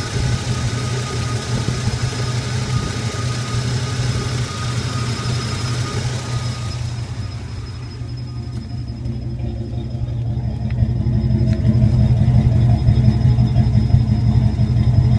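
Hot 1981 Turbo Trans Am 4.9-litre turbo V8 idling, with a hiss and a slight whistle over the engine that fade out about seven seconds in; after that the low idle rumble grows louder.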